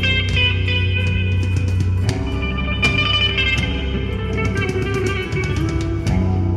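Rock music with electric guitar over bass and a steady drum beat.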